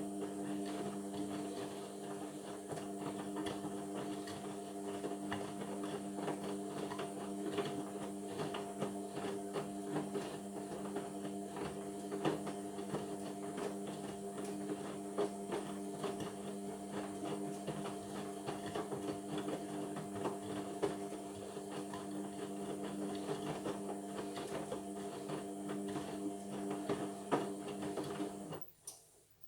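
Indesit washing machine running mid-way through a Cotton 60 wash: a steady motor whir of several fixed tones with many small clicks and knocks, which cuts off abruptly about a second before the end.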